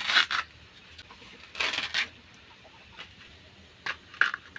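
Tough husk sheaths being torn and stripped off a fresh bamboo shoot by hand, in two short ripping bursts, the first at the start and the second a little before halfway, then a few sharp clicks near the end.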